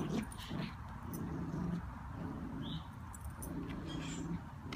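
Miniature and giant schnauzers growling at play in a tug of war: a run of low growls repeating about once a second, with faint clicks between them.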